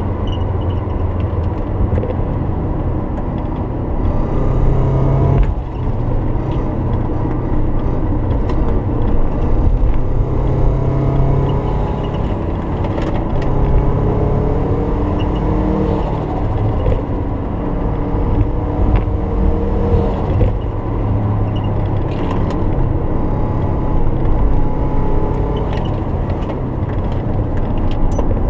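Subaru Forester's twin-turbo engine running as the car is driven, a steady rumbling drone whose pitch shifts up and down with throttle and speed.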